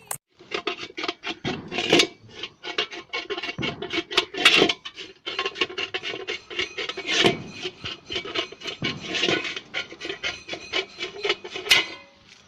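Rapid, irregular scraping and rasping strokes mixed with sharp clicks, from quick hand work on a hard material.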